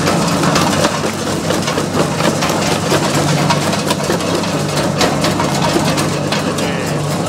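Mobile jaw crusher running on its engine, with brick and concrete rubble knocking and cracking irregularly as it is crushed.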